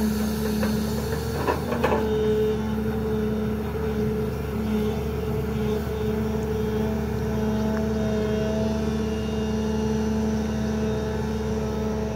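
Excavator diesel engine running at a steady speed while the machine digs, a constant hum with a few knocks about two seconds in and a higher tone joining for a few seconds midway.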